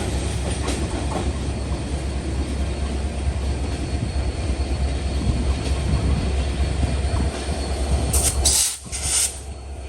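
Intercity passenger train running past on the rails: a steady heavy rumble with the rattle of wheels over the track. Brief sharp high-pitched bursts come near the end, and then the sound drops off abruptly.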